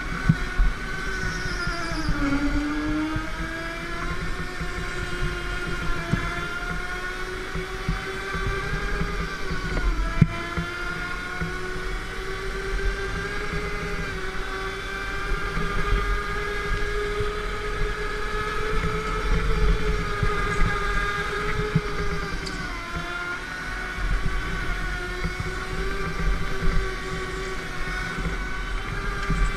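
Go-kart motor running at speed around a track, its pitch dropping sharply several times as it slows for corners and then climbing steadily again as it accelerates, over a rattling low rumble from the kart.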